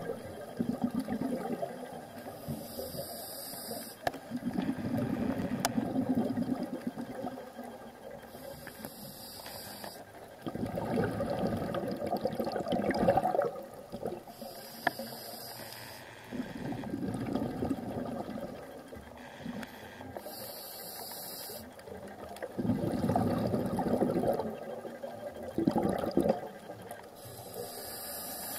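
Scuba diver breathing through a regulator underwater: a short hiss on each inhale, then a longer rush of exhaled bubbles, repeating about every six seconds.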